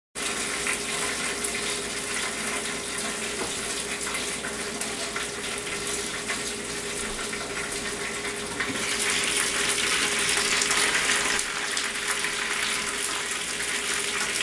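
Bacon-wrapped chicken sizzling in a countertop rotisserie oven: a steady hiss over the steady hum of the oven running, a little louder about nine seconds in.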